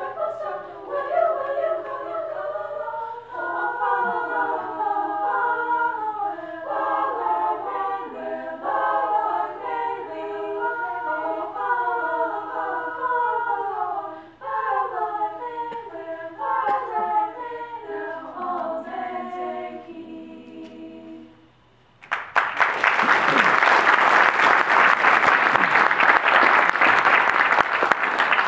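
Women's a cappella ensemble singing in three-part harmony, ending on a held chord a little over two-thirds of the way through. After a short pause, audience applause breaks out and is louder than the singing.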